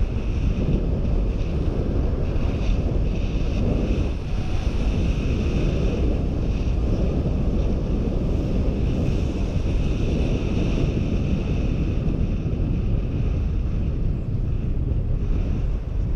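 Steady, loud wind noise buffeting a GoPro HERO4's microphone on a bicycle coasting downhill, a dense low rumble with a fainter hiss above it.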